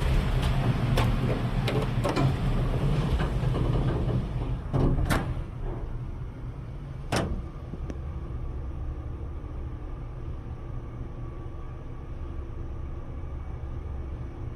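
Mitsubishi Elepet Advance V elevator: the sliding door runs with several clicks, two sharp clunks come about five seconds in and another about two seconds later, then a quieter, steady low hum.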